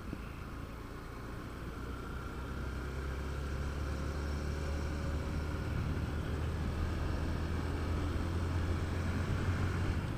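Motorcycle running on the road: a steady low hum with road and wind noise that grows gradually louder.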